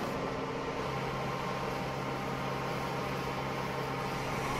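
Steady low engine hum of construction machinery, running evenly without change.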